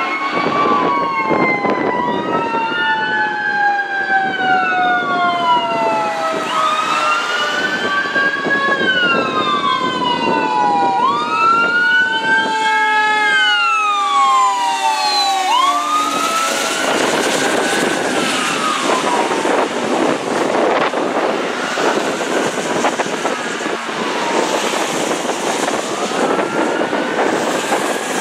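Fire engine's siren wailing, each cycle rising quickly and falling slowly, about every four and a half seconds. Over the first half a second, lower siren tone falls slowly. In the second half the truck's engine and road noise grow stronger as it passes.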